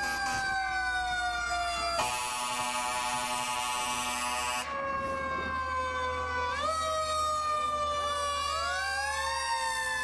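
Several fire truck sirens wailing at once, their pitches sliding down and then winding back up, overlapping. A steady horn blast sounds over them for about three seconds, starting two seconds in.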